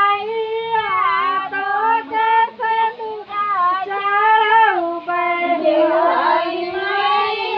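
Women singing together in high voices, with long held notes that slide up and down and no instruments; about six seconds in, the voices briefly drift apart.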